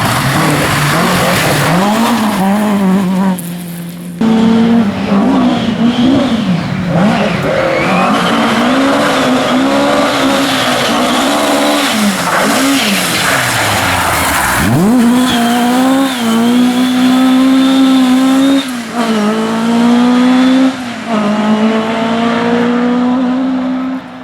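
Ford Escort RS rally car engines revving hard through the gears, the note climbing and dropping again and again, in several clips cut one after another. It cuts off abruptly at the end.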